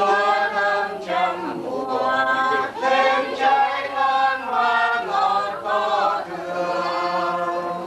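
A group of voices chanting or singing together in slow, long-held notes that slide from pitch to pitch, sung as funeral chanting by the mourners.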